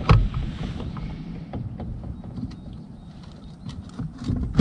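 A sharp knock on the fishing kayak right at the start, then scattered light clicks and handling sounds over a low rumble, as a just-landed pike and the tackle are handled aboard.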